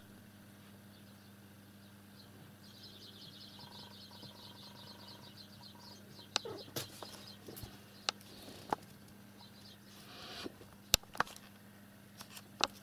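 A small bird chirping in a rapid high trill for a few seconds, followed by a series of sharp taps and knocks near the microphone, over a faint steady hum.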